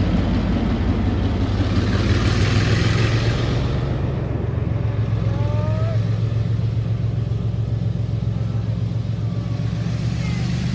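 Diesel locomotive engine running with a steady low hum as a train of old blue passenger coaches rolls slowly past, with a burst of hiss about two seconds in.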